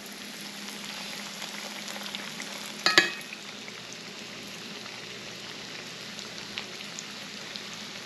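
Floured fish fillets frying in hot oil in a cast iron skillet: a steady sizzle with small crackles. About three seconds in, metal tongs give one sharp, ringing clink.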